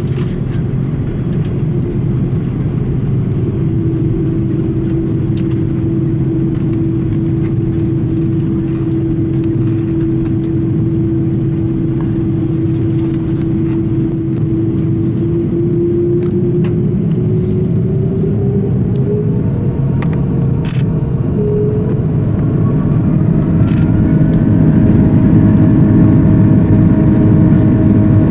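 Airbus A330-300 jet engines heard from inside the cabin, a steady low hum with one held tone. About two-thirds of the way in, the tones rise into a climbing whine and the sound grows louder as the engines spool up toward takeoff thrust. Faint clicks and rattles sound now and then.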